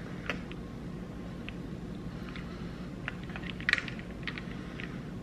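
Scattered light clicks of ice and a plastic straw against a glass cup as iced coffee is stirred and sipped, a few clustered together about three and a half seconds in, over a steady low hum.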